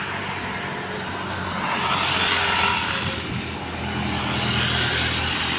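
Distant Boeing 787 Dreamliner jet engines at takeoff thrust as the airliner climbs away: a steady rushing noise that swells louder about two seconds in and again near the end.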